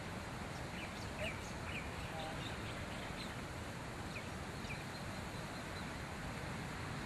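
A few short, faint, high-pitched animal chirps scattered over a steady background hiss.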